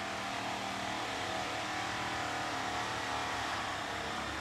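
Steady hum of a motor vehicle's engine, with no clear start or stop.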